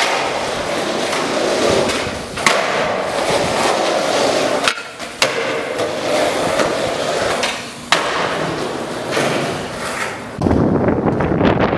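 Skateboard wheels rolling over concrete, a steady rough rumble broken by a few sharp clacks of the board, with a heavier, deeper roll near the end.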